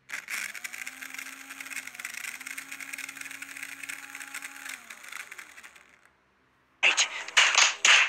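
Small DC motor fitted into a model F1 car's old gear system, powered through hand-held leads, running with a steady whine and gear rattle and then winding down with falling pitch about five seconds in. About a second before the end, several loud bursts of crowd noise.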